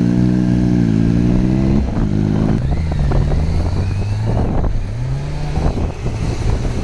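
Sport motorcycle engines running hard as the bikes pull away, the engine note held and then dipping and rising again several times as they accelerate.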